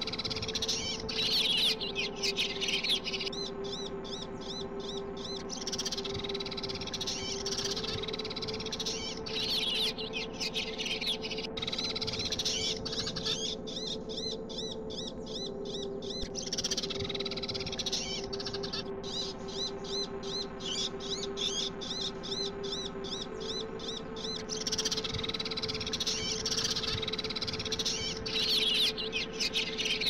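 Sparrow chirping played back as a trapping lure call: a looped recording of busy chirps that swells and thins in a cycle of about seven to eight seconds, over a steady hum.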